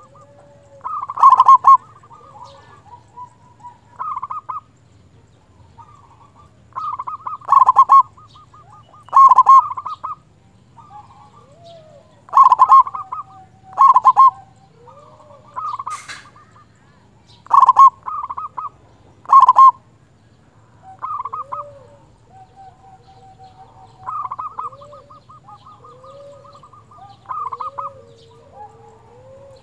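Zebra dove (perkutut) singing its loud cooing song: phrases of quick stuttering notes repeated every couple of seconds, the loudest often in pairs. Fainter, lower gliding calls come in between.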